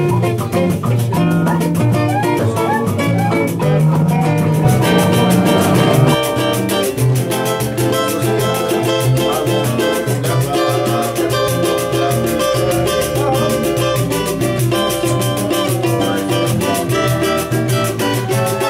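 Instrumental samba music led by nylon-string acoustic guitar, with percussion keeping a steady beat. The sound grows fuller about five seconds in.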